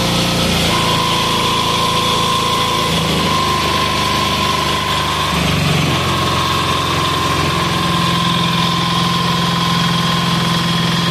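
186FA single-cylinder air-cooled diesel engine idling on lamp oil, its speed shifting in small steps a few times as the throttle lever is adjusted, settling into a low idle.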